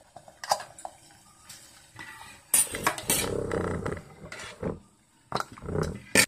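Clinks and clatter of a stainless-steel idiyappam steamer stand being lifted out of its pot, metal knocking against metal. Several separate knocks, with the loudest clattering a couple of seconds in.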